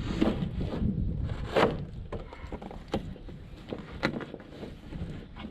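Wire rabbit cage being handled and turned over, giving a few sharp metal knocks and rattles, the loudest about a second and a half in.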